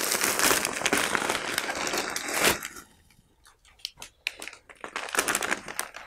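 Thin black plastic bag crinkling and rustling as a wrapped package is worked out of it, dense for about two and a half seconds. Then a short hush, followed by a few lighter crinkles as the package's white wrapping is handled.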